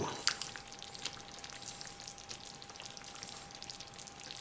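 Ladle scooping thick chicken stew out of a slow cooker and pouring it into a ceramic bowl: soft, quiet wet slopping with a few faint clicks.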